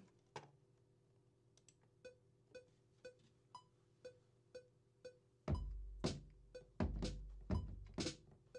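Software metronome ticking at 120 BPM, two faint clicks a second. About halfway through, 808 drum samples come in over the click: deep kick drums with long booming tails alternating with bright snare hits, played live into a Maschine pattern as it records.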